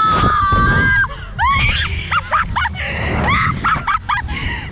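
Two young women screaming on a slingshot catapult ride: one long, held high scream that breaks off about a second in, then a run of short rising shrieks and laughter.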